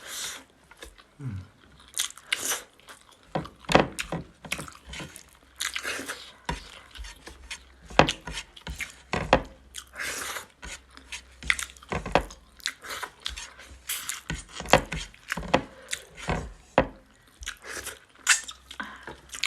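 Close-up mukbang eating sounds: pork and rice being chewed, with irregular short sharp clicks and smacks throughout.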